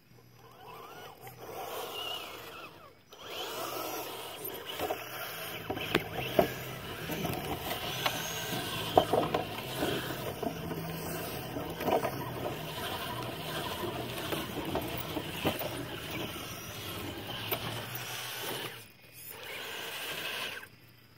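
Axial AX10 Deadbolt RC rock crawler driving: its electric motor and metal-geared transmission whining steadily, with scattered knocks. The sound drops out briefly about three seconds in and again near the end, when the truck stops.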